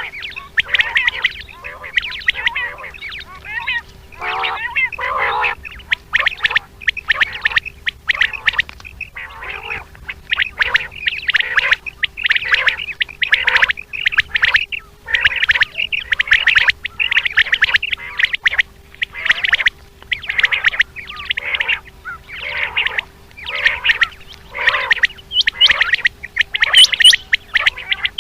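Common quail calling over and over in quick, short notes, several a second, with a faint steady hum underneath.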